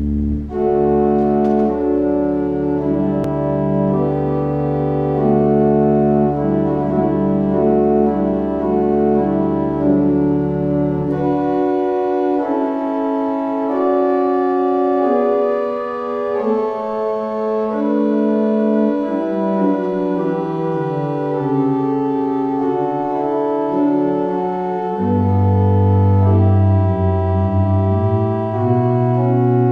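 Organ playing a slow piece of sustained chords. The deep pedal bass drops out after about eleven seconds and comes back near the end.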